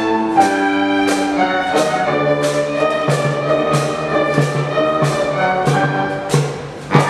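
School orchestra playing an instrumental passage with a steady beat of about three accents every two seconds, ending on a sharp final stroke near the end.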